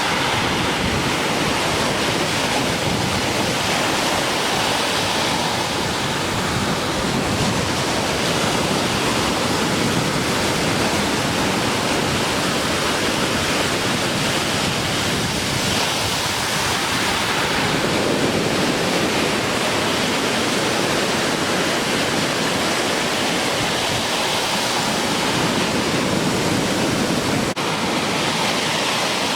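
Ocean surf breaking at a river mouth, a dense continuous wash of wave noise that swells and eases every few seconds, from the swell left by a passing typhoon.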